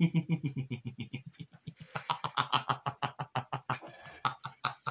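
A man laughing: a long run of quick, even chuckles, about eight a second.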